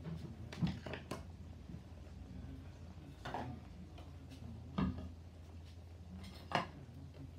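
Small household objects being taken out of a nightstand and set down: about five scattered knocks and clatters, with a low steady hum underneath.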